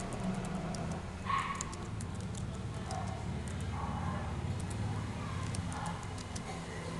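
Computer keyboard keys clicking irregularly over a steady low hum, with a short louder sound about a second in and a few fainter ones later.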